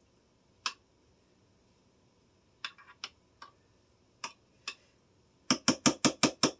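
A spoon clicking against a glass baking dish while mashed potatoes are spread in it: scattered single clicks, then a quick run of about eight taps near the end.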